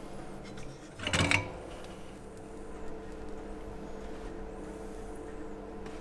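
A short, loud knock or scrape about a second in, over a steady hum.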